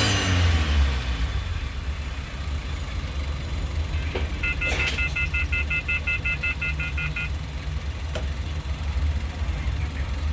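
Suzuki Carry engine idling steadily. Near the middle comes a rapid electronic beeping, about six short beeps a second for nearly three seconds, from the CNG changeover switch as the van is put over to CNG.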